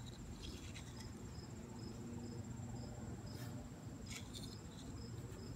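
Faint insects singing: a steady high-pitched trill with a shorter high chirp repeating about twice a second. A few soft clicks come through now and then.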